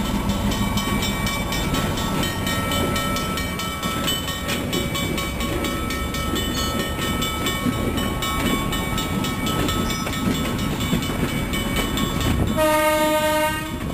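EMD NW2 diesel switcher locomotive working a train, its 12-cylinder diesel engine running steadily as cars clatter along the track. Near the end the horn sounds one blast of about a second.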